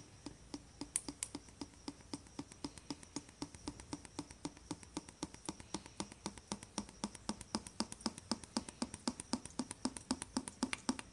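Motor oil glugging out of an upturned quart bottle into a funnel while the engine is filled with fresh oil: a steady run of about five or six glugs a second, growing louder toward the end.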